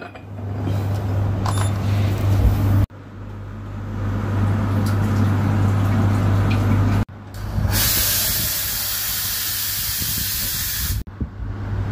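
Espresso machine steam wand blowing off steam in a loud, steady hiss for about three seconds near the end, stopping sharply. Before it, a steady low hum with a noisy background, which breaks off abruptly twice.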